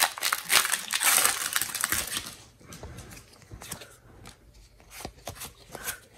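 Foil booster-pack wrapper crinkling for about the first two seconds, then quieter soft clicks and rustles of a stack of trading cards being handled.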